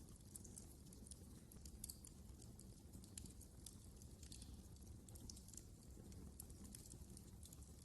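Faint crackling of a wood fire in a fireplace: many small, irregular pops and snaps over a low, steady rumble.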